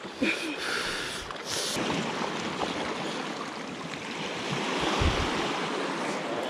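Sea surf washing against the shoreline rocks: a steady rush of waves that swells about four to five seconds in.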